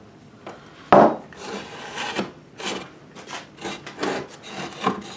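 A sharp wooden knock about a second in, then a string of short scraping and rubbing sounds as the wooden post of a drop-weight impact test rig is shifted about on its wooden base board.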